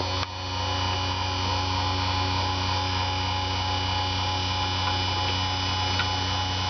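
YN-08 Super drill-bit grinder's motor running steadily with a constant hum and whine, its grinding wheel spinning.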